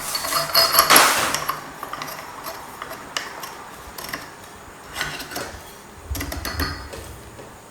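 Clinks and small clicks of a glass light shade and little metal screws being handled and turned by hand on a ceiling fan light kit, the loudest a ringing clink about a second in, then lighter ticks every second or so.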